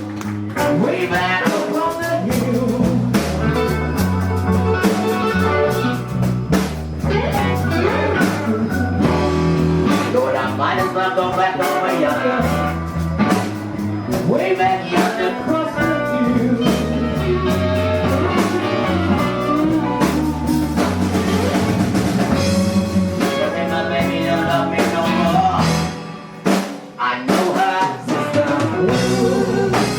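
Live blues band playing, with electric guitar, bass and drum kit; the band briefly drops out near the end.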